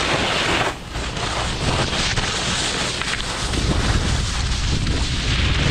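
Wind rushing over an action camera's microphone while skiing, mixed with the hiss of skis sliding on snow. It dips briefly a little under a second in, then goes on steadily.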